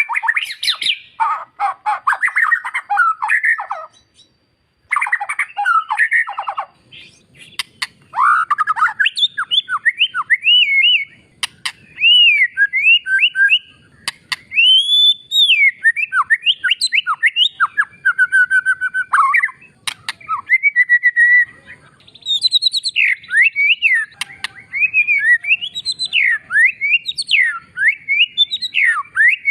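White-rumped shama (murai batu) singing loudly and almost without a break. Rapid harsh chattering fills the first few seconds and stops briefly about four seconds in; after that come varied clear whistled phrases that glide up and down, with a few sharp clicks among them.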